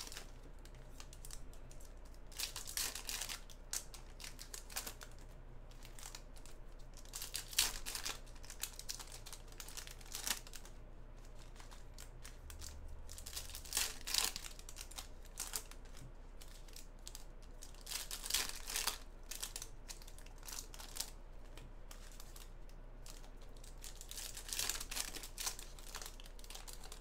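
Foil wrappers of basketball trading-card packs crinkling and tearing as they are ripped open by hand, in short bursts every few seconds.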